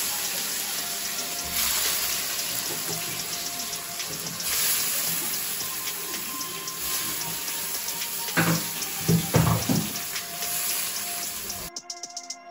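Tomato slices sizzling steadily in hot oil in a frying pan, with a few brief knocks about eight to nine and a half seconds in. The sizzle cuts off suddenly near the end.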